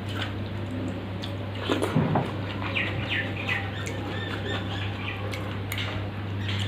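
Chewing and wet mouth sounds of someone eating rice soaked in water, with a few sharp smacks and clicks loudest about two seconds in, over a steady low hum.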